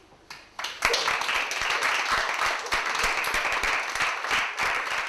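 Audience applause: two or three scattered claps, then the whole house breaks into steady clapping about a second in.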